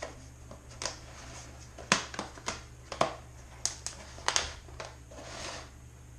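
Irregular light clicks and knocks, about a dozen, with a brief hiss about five seconds in, over a steady low hum. No smoke alarm chirp is heard.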